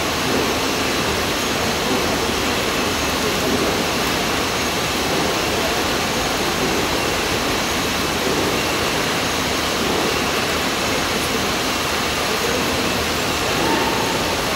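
Spiral belt conveyor running steadily, a constant even rushing noise with no distinct knocks or rhythm.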